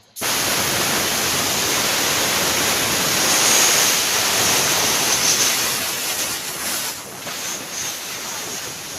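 A loud, steady hissing jet that starts abruptly and eases off over the last few seconds before cutting off.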